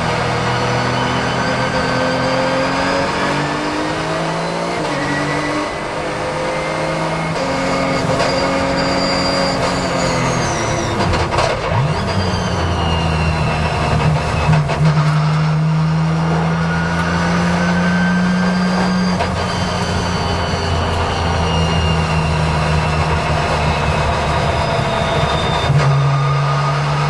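Porsche 911 GT3 race car's flat-six engine heard from inside the cabin, its pitch rising and falling with throttle and gear changes. A steady hiss of water from the rain-soaked track runs underneath.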